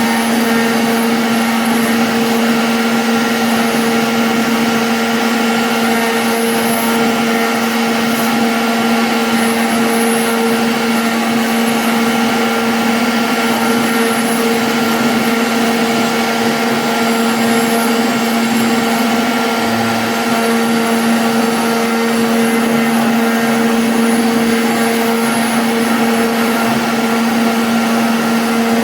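CNC router spindle running steadily while the bit cuts, a constant hum and whine that holds one pitch throughout, over a dense rushing noise.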